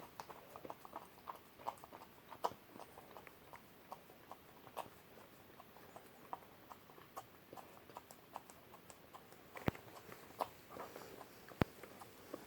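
German Shepherd puppy licking whipped cream from a small cup: a run of quick, irregular licking and smacking clicks, with two sharper clicks in the second half.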